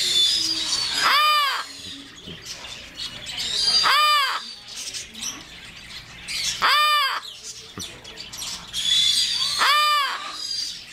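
Yellow-naped Amazon parrot cawing: four loud calls about three seconds apart, each a single note that rises and falls in pitch.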